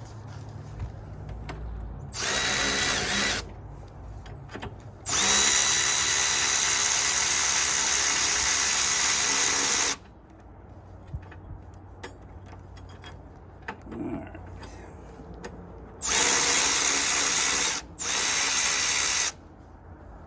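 Power drill/driver running in four bursts, one long run of about five seconds among shorter ones, with a steady motor whine. It is used to back out the fasteners holding the car battery in place.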